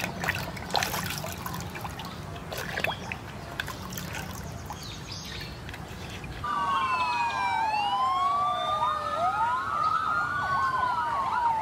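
Water sloshing and splashing as a toy fire truck is washed by hand in a bucket. About six seconds in, several fire engine sirens start wailing together, rising and falling out of step, and one switches to a fast yelp near the end.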